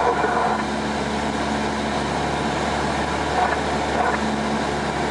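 Cessna light plane's piston engine and propeller running with a steady drone, heard inside the cabin.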